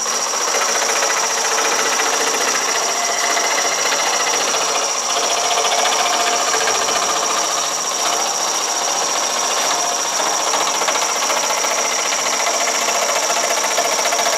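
Shopsmith 18-inch jigsaw running at about 900 RPM, its reciprocating blade cutting a half-inch piece of yellow pine with a rapid, steady clatter and a steady high whine.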